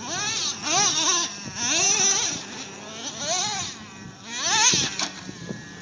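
A high-pitched wailing voice: a run of cries that rise and fall in pitch, in swells about a second apart, dying away near the end.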